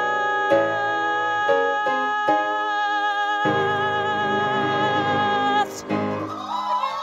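Female musical theatre singer holding a long final note with vibrato over accompaniment chords. The note cuts off about five and a half seconds in, and the audience breaks into cheering and whoops near the end.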